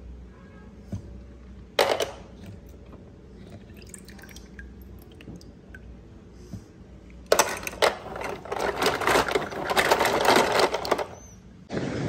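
Water splashing and dripping as wet hands rinse a small toy car over a tub of water: one short splash about two seconds in, then a few seconds of steady splashing. Music starts just before the end.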